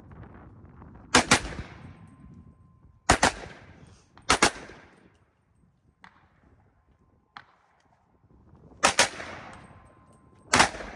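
Gunshots fired in quick pairs, five volleys with pauses of one to four seconds between them, each shot trailing a short echo: the double-tap pattern of a modified binary-style trigger that fires on pull and again on release. A small click sounds between the volleys.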